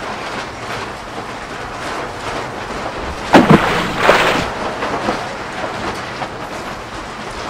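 Gusty wind buffeting the microphone, a steady rushing noise, with a louder blast a little over three seconds in.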